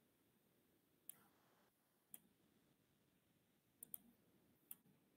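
Five faint, sharp clicks from computer use, spaced irregularly over near silence, two of them in quick succession a little before the four-second mark.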